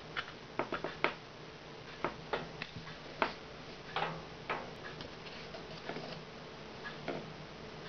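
Irregular light clicks and taps, more of them in the first few seconds, over a faint steady low hum.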